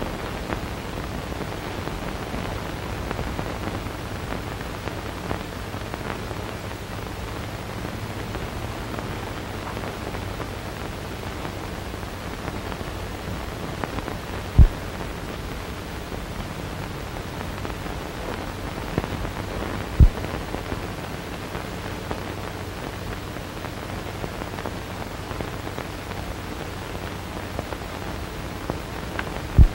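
Steady hiss and low hum of a worn 1930 optical film soundtrack with no dialogue or music, broken by three sharp pops, the first about halfway through and the last at the very end.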